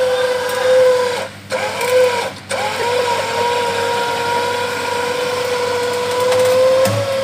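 Electric winch motor whining at one steady pitch as it pulls a mud-stuck 4x4 forward. It stops briefly about a second and a half in and again around two and a half seconds.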